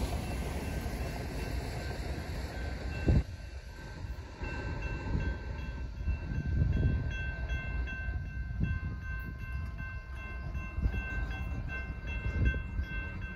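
Railroad crossing warning bell ringing in a steady pulsing rhythm as the crossing gates rise. Under it, the rumble of the train that has just passed dies away over the first three seconds, and there is one sharp thump about three seconds in.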